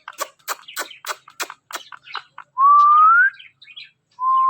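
Pet parrot making a quick run of short clicking chirps, several a second, then two loud whistles that each rise in pitch.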